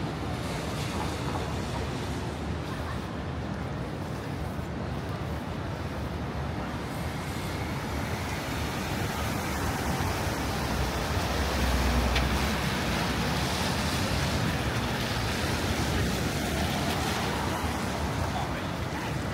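City traffic on wet pavement: a steady hiss of tyres on the wet road as cars pass close. The loudest pass, with a deep low rumble, comes about twelve seconds in.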